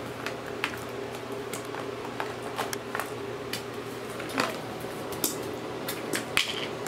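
Slime being squished and poked by hand: irregular small clicks and pops, with a couple of louder ones about four and a half and six and a half seconds in.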